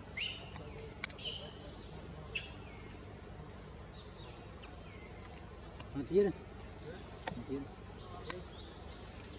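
Steady high-pitched insect drone, with a few short high chirps in the first seconds and scattered sharp clicks. About six seconds in comes a brief low grunt-like voice, the loudest sound.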